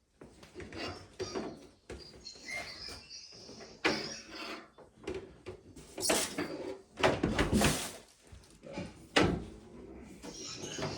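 Irregular handling noises: rustling and scraping with several sharp knocks, the loudest from about six to nine seconds in, as packaging and pieces are moved about on a table.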